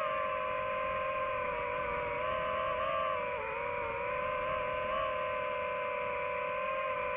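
DJI FPV drone's motors and propellers whining steadily in flight, the pitch wavering slightly with throttle and dipping briefly about three and a half seconds in.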